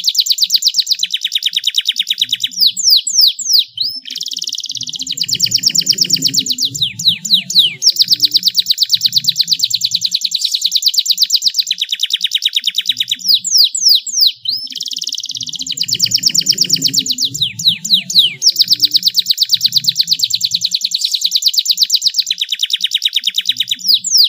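Domestic canary singing long, rapid rolling trills, broken about every eleven seconds by a quick run of steeply falling whistled notes.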